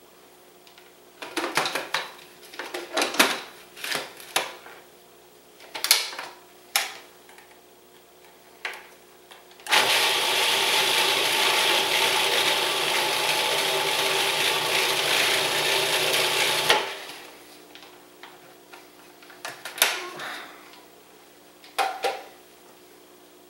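A few clinks and knocks as the oil bottle and food processor are handled, then the food processor's motor runs steadily for about seven seconds, chopping an herb, lemon zest and olive oil marinade, and cuts off. Two more knocks near the end.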